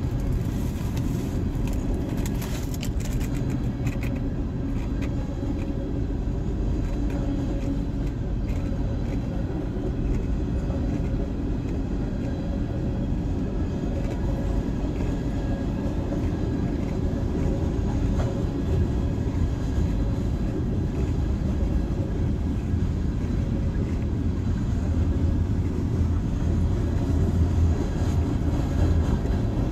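Freight train rolling through a grade crossing: the tank cars and hoppers make a steady low rumble on the rails, with a few clicks in the first few seconds. Heard from inside a car's cabin.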